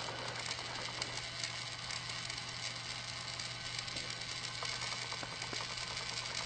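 Small electric motor of a battery-powered toy train whirring steadily, with a few faint clicks.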